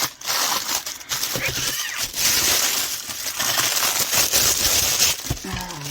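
Plastic packaging crinkling and rustling as it is handled, a dense, continuous crackle.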